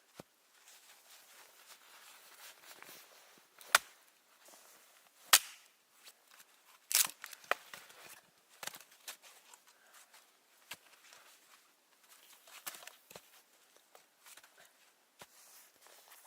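Dry wood cracking and snapping: a series of sharp, irregular cracks, loudest about four and five seconds in, among many smaller crackles.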